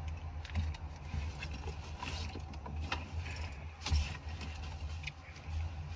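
A person eating a large burger close to the microphone: chewing and mouth sounds with scattered small clicks and short rustles, the loudest about two and four seconds in. A steady low hum of the car cabin sits underneath.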